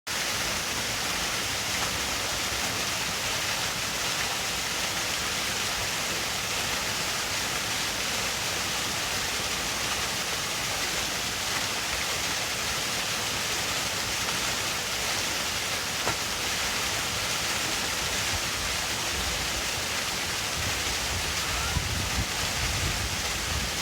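Water of a waterfall in a crocodile enclosure pouring steadily into its pool, a constant even rush, with some low rumbling in the last few seconds.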